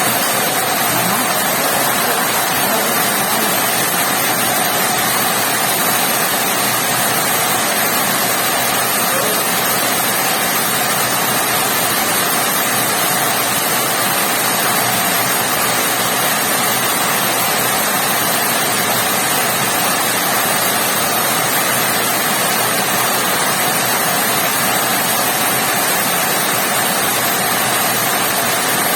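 Heavy rain falling steadily, an unbroken hiss of water with no let-up.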